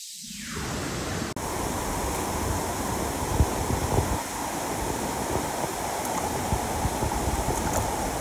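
Steady rush of flowing river water, with a few faint knocks.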